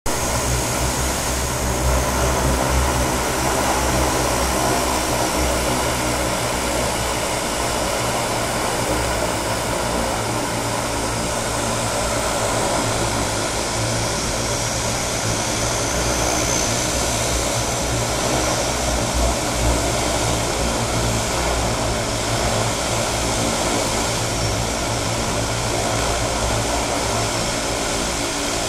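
Steady drone of twin-engine floatplanes' propeller engines running, mixed with a constant rushing noise that does not let up.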